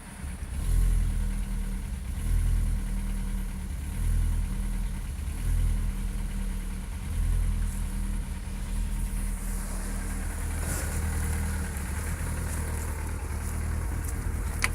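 Seat Leon 1.6 16V (AUS) four-cylinder petrol engine idling unevenly with a misfire, its note swelling about every second and a half during the first half and then running steadier. A sharp click comes near the end.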